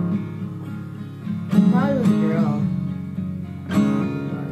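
Background music on acoustic guitar, with strummed chords struck about a second and a half in and again near the end.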